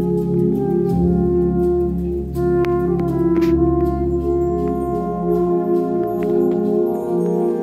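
Live brass ensemble playing slow, sustained chords. A low bass note drops out about five and a half seconds in, and there are a few light percussion taps near the middle.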